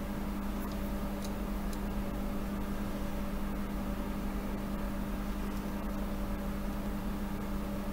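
Steady electrical or mechanical hum of workshop equipment, with a few faint light clicks.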